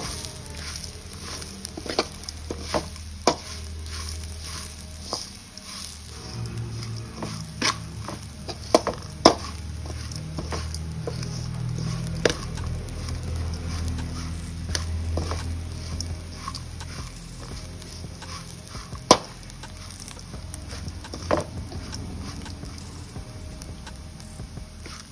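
Steel spoon scraping and clicking against a steel pan at irregular intervals while stirring and frying a dry coconut-and-masala mixture, over a low steady hum.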